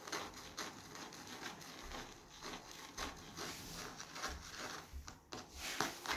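Irregular rustling and rubbing: light scrapes and small clicks of handling close to the microphone, with no steady sound.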